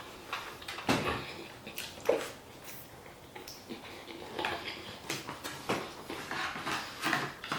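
Close-up chewing and mouth noises while eating: irregular wet smacks and clicks, a few to a couple of seconds apart.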